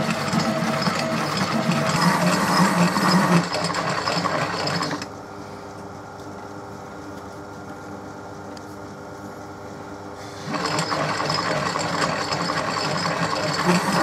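Myford lathe running with its gear train whirring while taking a hand-fed facing cut on a model locomotive cylinder block. About five seconds in the lathe stops, leaving a low steady hum, and about five seconds later it starts up again.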